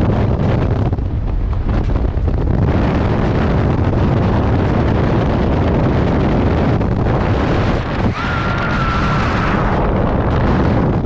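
Loud, steady wind rushing over the microphone in the open door of a skydiving plane, continuing into tandem freefall after the exit about eight seconds in. A faint thin whistle lasts about a second and a half just after the exit.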